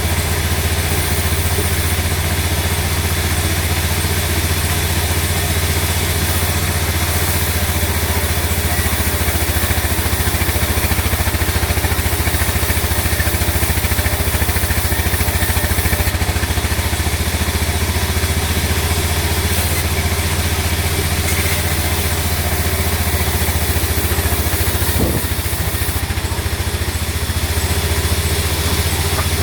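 A sawmill machine's engine running steadily with an unchanging low drone.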